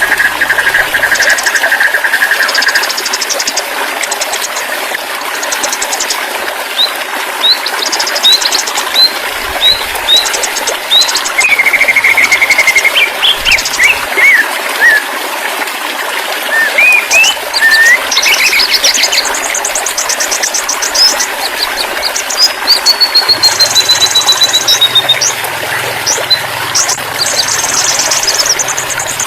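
White-rumped shama singing varied phrases (fast trills, short whistled chirps and a falling run of notes) over a steady rush of running water.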